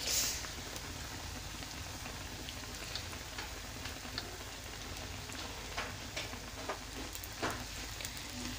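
Hot oil sizzling steadily around a gram-flour-battered bread pakora deep-frying in a pan, with scattered pops and crackles. A brief louder hiss comes right at the start.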